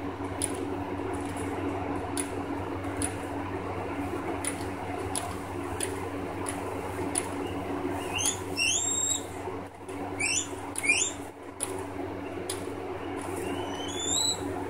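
Guinea pigs rustling through and chewing hay, with many small clicks of crunching stems. Several short, high, rising squeaks come from them in the second half, a couple close together and one more near the end.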